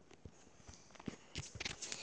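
Faint footsteps on a hard floor: a few soft, scattered taps at first, coming quicker and louder near the end.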